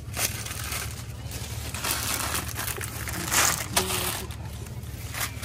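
Plastic grape bags rustling and crinkling in a string of short rustles as bunches of table grapes are packed into them by hand, over a steady low hum.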